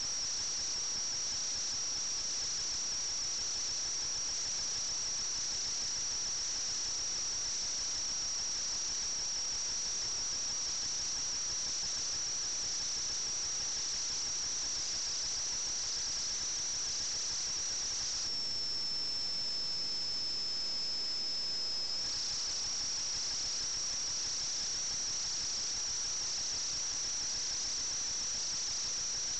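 Steady high-pitched whine over a constant hiss, from an FPV model aircraft's onboard recording. The whine dips slightly lower in pitch and a little louder for a few seconds past the middle, then returns.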